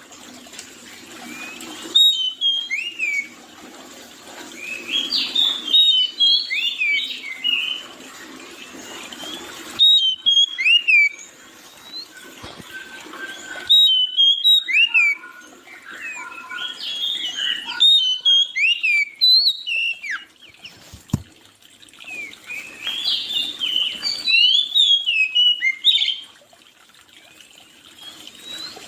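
Songbirds singing in repeated phrases of quick, high chirps and whistled notes. The phrases stop and restart abruptly every few seconds, as in edited recordings.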